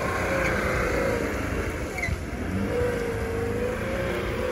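Lada Niva engine running under load, its pitch wavering up and down as the car works to climb out of a difficult spot on the trail.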